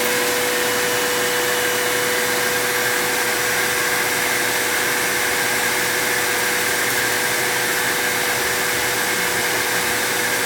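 Vacuum cleaner motor running steadily, a constant airy rush with a steady whine.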